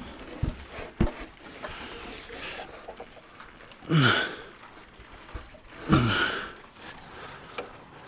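Cordless drill backing out screws from a structural insulated panel, run in two short bursts about two seconds apart, each winding down in pitch as the trigger is released, with a few light knocks before them.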